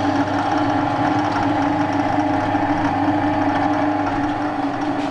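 JIB 250 16VL variable-speed bench drill press running: its electric motor and the belt over the split variator pulleys give a steady hum with a couple of clear steady tones.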